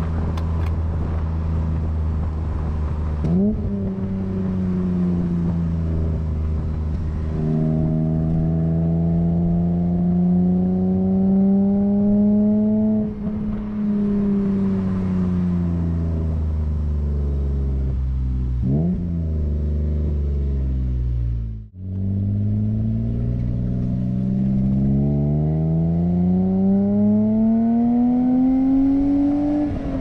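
1989 BMW E30 320i's M20B20 two-litre straight-six running through a Scorpion half-system exhaust, heard from the rear bumper on the move. The revs climb under acceleration, drop sharply at gear changes, fall away off the throttle, and climb hard again near the end.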